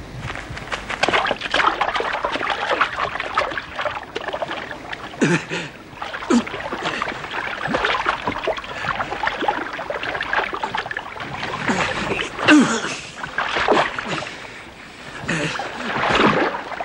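Heavy irregular splashing of lake water as people wade and struggle waist-deep beside a small boat. A few short voice sounds are heard through it.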